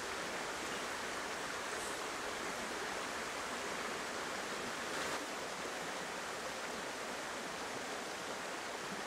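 River water running over rocks: a steady rush of flowing water.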